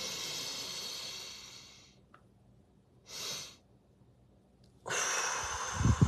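A woman's deep breath in lasting about two seconds, then a short extra sip of air about a second later, then a long, louder breath out through pursed lips starting about five seconds in.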